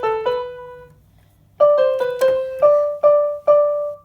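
Rock Jam RJ-661 electronic keyboard playing a short single-note melody in a piano-like voice. Three quick notes come at the start, then after a pause a run of about seven notes, ending on three repeats of the same note.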